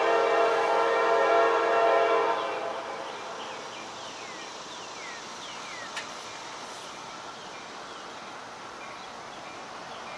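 CSX SD50 diesel locomotive's multi-chime air horn, a K5LA, holding a steady chord that cuts off about two seconds in. The quieter running of the approaching locomotive follows, with a few faint falling squeals and a single click in the middle.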